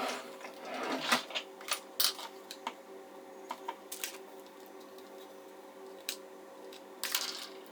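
Small sharp plastic clicks, taps and scrapes as the plastic back cover of a Samsung Galaxy A21s is pried and lifted off the frame with tools. A faint steady hum runs underneath.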